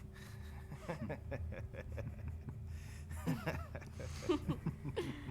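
Short, scattered vocal sounds from people, over a low steady hum.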